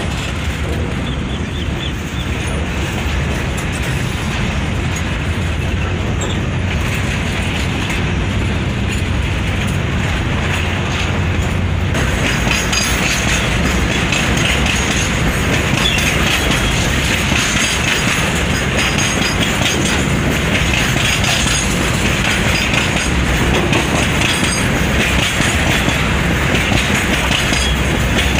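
Double-stack container freight wagons rolling past close by, a steady rumble and clatter of steel wheels on the rails that turns brighter and harsher about twelve seconds in.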